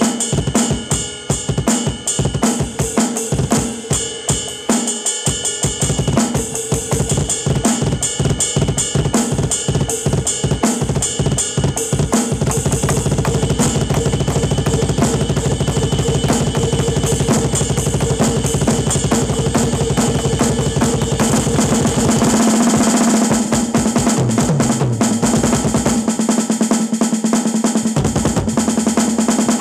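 Drum kit played hard in a fast solo: separate bass drum, snare and cymbal hits at first, then from about twelve seconds in a continuous rapid run of bass-drum strokes under ringing cymbals.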